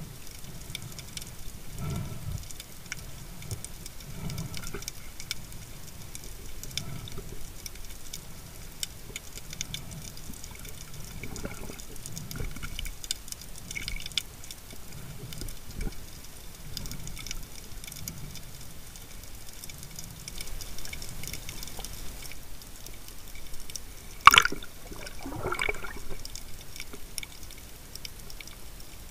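Underwater sound through a diving camera's housing during a breath-hold spearfishing dive: a faint steady crackle with low swishes of water about every two seconds. About 24 seconds in comes one sharp knock, followed by a short sound that falls in pitch.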